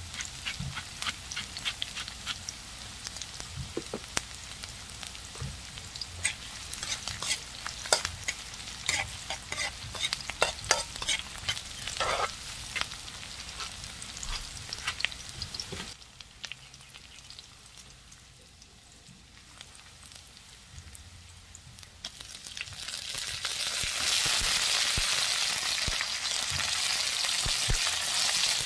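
Shallots, garlic and ginger sizzling in oil in a wok, with a spatula clicking and scraping against the pan as they are stirred. The sizzle drops quieter for several seconds, then rises to a loud, steady sizzle near the end as pieces of tuna tail go into the hot oil.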